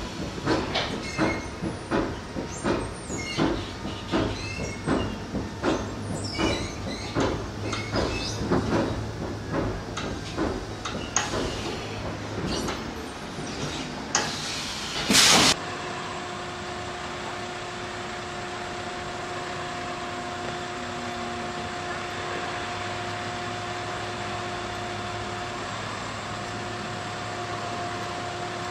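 Commuter train cabin: wheels clacking over rail joints at roughly two knocks a second over a steady rumble while the train rolls slowly. About halfway through a short, loud hiss cuts off suddenly. After that comes a steady machine hum with two steady tones.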